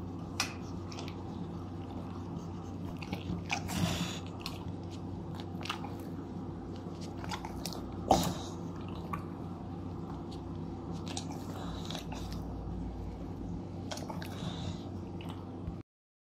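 A bulldog licking and smacking its lips, with short wet clicks and smacks coming irregularly as it works pumpkin puree off its muzzle. A steady low hum runs underneath.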